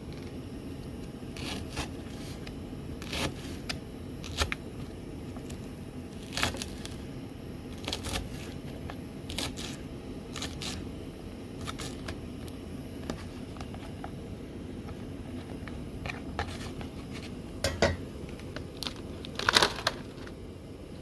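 Scattered light clicks, knocks and scrapes of things being handled, irregular and spaced a second or more apart, with a small cluster of louder ones near the end, over a steady low background hum.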